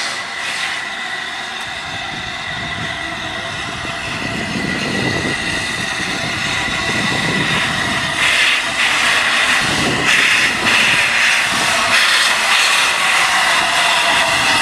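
LNER A3 steam locomotive 60103 Flying Scotsman running slowly in with its cylinder drain cocks open, a steady hiss of steam over the rumble of the engine and wheels, growing louder from about eight seconds in as it draws closer.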